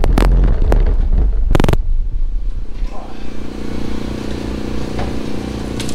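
A car's stock steel exhaust pipe and muffler clanking and scraping as it is handled and set down, with loud metal knocks at the very start and again about one and a half seconds in. A steady low hum runs underneath.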